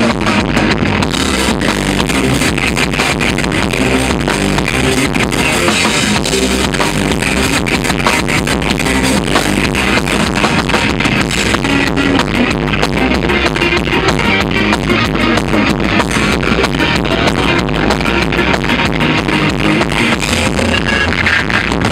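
Live ska-punk band playing loud and fast, with a steady, dense drum beat under electric guitar and bass, recorded with poor, harsh sound quality.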